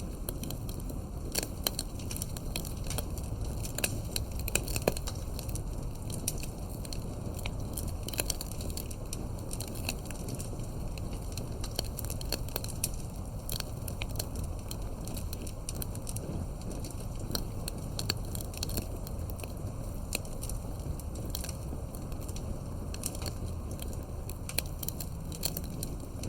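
Fire crackling: frequent irregular sharp pops and snaps over a steady low rumble of burning, with a few louder pops in the first few seconds.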